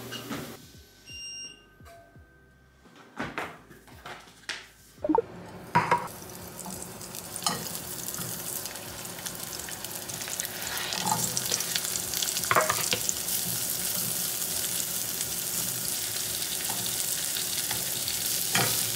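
Food sizzling in oil in a nonstick frying pan, first sun-dried tomatoes, then mushrooms and sliced vegetables. The sizzle starts about six seconds in and grows louder, with occasional knocks as food goes into the pan and is stirred. Before that there are a few short beeps and clicks from treadmill console buttons.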